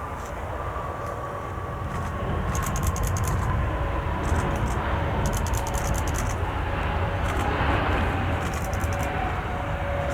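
Jet airliner passing, its engines a steady rumble that builds over the first few seconds, with a whine that falls slowly in pitch. Short bursts of rapid high clicking come and go over it.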